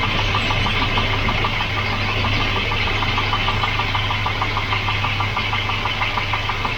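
Volvo 240's four-cylinder redblock engine idling steadily, with a rapid, even light ticking over its low hum.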